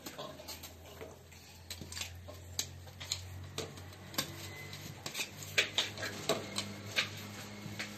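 Scattered light clinks and taps of a metal strainer against a metal wok as boiled egg noodles are tipped and shaken into it, over a steady low hum.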